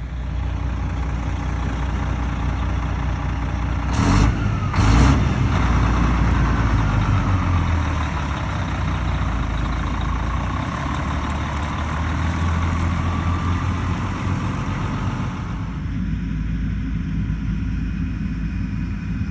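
Heavy farm vehicle engine running steadily, with two short hisses about four and five seconds in and a faint wavering whine over it for a while after.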